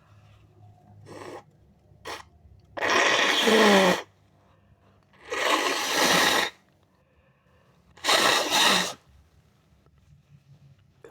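A person blowing their nose hard three times, each blow a forceful rasping rush of air about a second long, the first with a falling honk. Two brief, quieter sounds come first.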